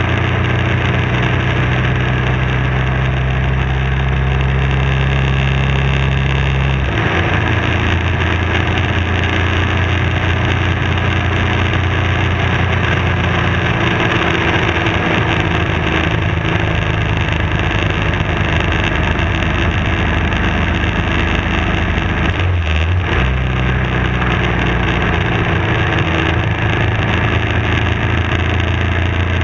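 BMW F650 motorcycle engine running steadily at road speed, with wind rush over the bike. The engine note changes about seven seconds in and dips briefly near 23 seconds.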